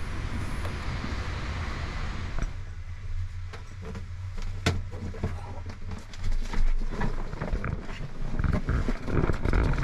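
A person climbing down through a small submersible's round top hatch into its cabin: clothes rustling and brushing near the microphone, then scattered knocks and thumps against the hull, with one sharp click about halfway through.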